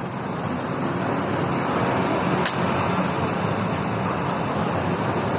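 Steady rush of road traffic passing by, a continuous wash of vehicle noise, with a faint click about two and a half seconds in.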